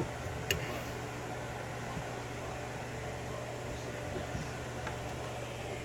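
Steady low background hum and hiss, with a sharp light click at the start and another about half a second in, then a few faint ticks, as the picked-open lock cylinder and picking tools are handled.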